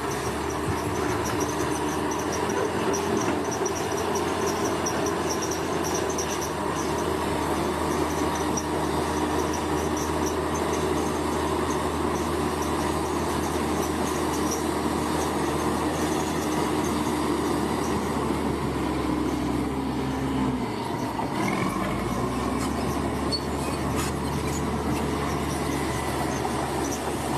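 Crawler bulldozer's diesel engine running steadily under load, with the metallic rumble of its tracks; the engine note dips and recovers about twenty seconds in.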